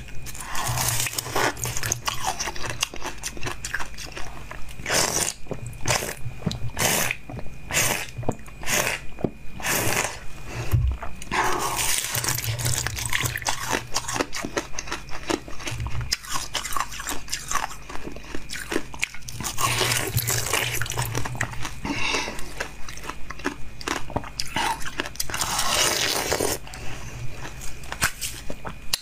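Hard ice bitten and crunched between the teeth close to the microphone: a run of sharp cracking bites, thickest in the first ten seconds or so, then steadier crunching and chewing of the ice pieces.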